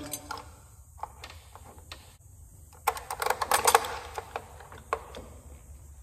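Metal parts clicking and clinking as a new starter motor and its mounting hardware are handled and seated on a lawn tractor engine, with a quick run of rattling clicks about three seconds in.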